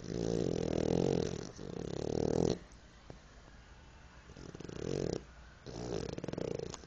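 A French bulldog snoring in its sleep: two loud, rasping snoring breaths back to back, a pause, then two more.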